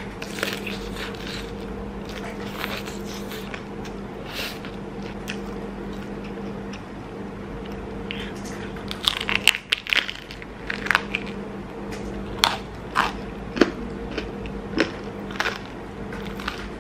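Crisp thin-crust homemade pizza being bitten and chewed close to the microphone: crunchy bites and chews, sparse at first, then thick and sharp from about nine seconds in. A steady low hum runs underneath.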